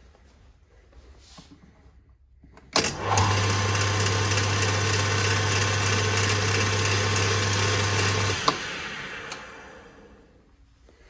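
Atlas (Clausing) Model 10100 metal lathe switched on with a click about three seconds in, its electric motor and belt drive running the spindle steadily with a low hum for about five and a half seconds. It is then switched off with a click and spins down to a stop, with one more click as it slows.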